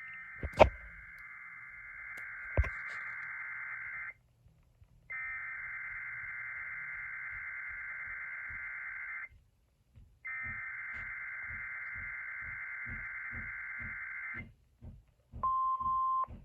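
Emergency Alert System SAME header: three digital data bursts of about four seconds each, a harsh warbling buzz with a second's gap between them, announcing an incoming tornado watch alert. Near the end comes a brief steady 1050 Hz attention tone. A sharp click about half a second in is the loudest sound, with a second click a couple of seconds later.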